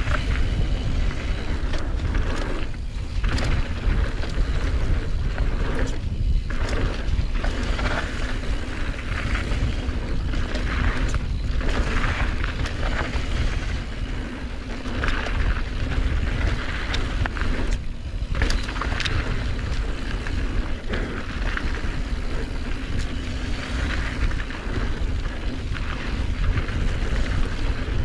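Wind buffeting an action camera's microphone during a mountain-bike descent, with tyres running over a dirt trail and the bike rattling over bumps in frequent short knocks.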